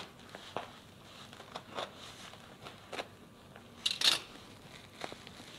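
A box cutter slicing through a plastic courier mailer, with short clicks and crinkling of the plastic as it is cut open, and one louder crackle about four seconds in.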